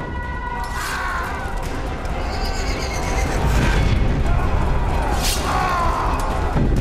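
Horses whinnying a few times, each call wavering and falling in pitch, over a low rumble that grows louder as the sound fades in.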